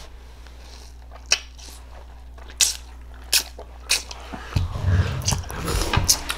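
Raw star fruit slices being bitten and chewed: a few sharp, crisp bites, then denser juicy chewing from about two-thirds of the way in.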